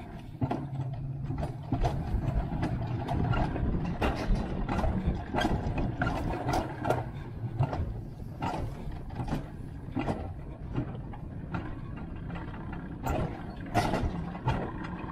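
Alpine coaster sled running fast on its steel tube rails: a steady rolling rumble of the wheels with frequent sharp clacks and knocks, a few louder ones near the end.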